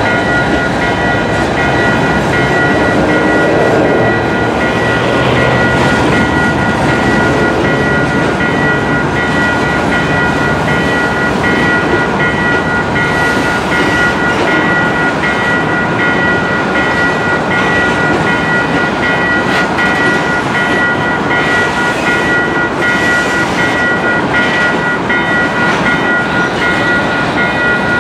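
Freight train's boxcars rolling past: steady wheel and rail noise with clatter over the crossing, under the continuous ringing of the crossing-signal bell. A diesel locomotive's engine is heard in the first few seconds as it moves away.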